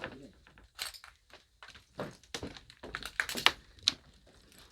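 Footsteps crunching and cracking over debris and old boards, an irregular run of sharp cracks and thunks, loudest about three and a half seconds in.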